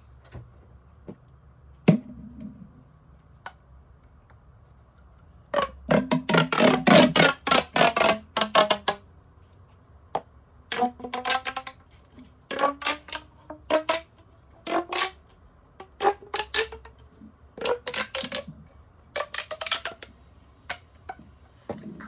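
Plastic pop tube fidget toy being stretched and squashed: rapid runs of crackling pops with a hollow, pitched ring, in bursts of one to three seconds, the pitch rising in some of them. A single sharp click comes about two seconds in.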